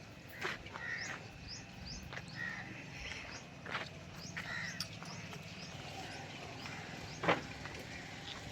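Birds chirping and calling over and over, quick high chirps mixed with harsher calls, with a sharp click about seven seconds in.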